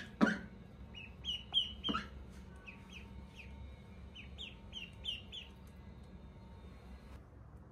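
Ducklings peeping: a run of short, high, slightly falling chirps, some in quick pairs, fading out after about five seconds. Two brief louder sounds come near the start, about a second and a half apart.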